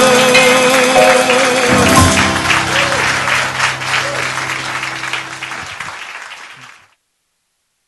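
A cabaret band's last chord rings out, with a singer's held note, and audience applause breaks in about two seconds in. Both fade steadily and cut to silence near the end.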